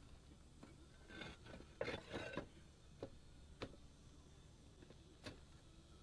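Concrete roof tiles being handled and set in place: scraping and rubbing about a second in, then three short, sharp clacks.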